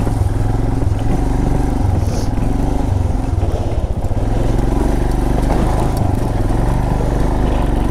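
Royal Enfield Himalayan's 411 cc single-cylinder engine running steadily under load as the motorcycle is ridden over a rocky, wet track, with knocks and rattles from the bike on the rough ground.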